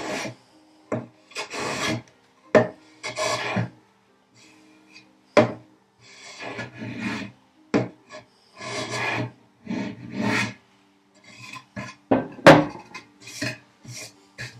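Hand plane taking repeated rasping strokes along the edges of a walnut-and-cherry box to flatten high spots that make it rock, with sharp wooden knocks between strokes as the tool or box is set down; the loudest knock comes near the end.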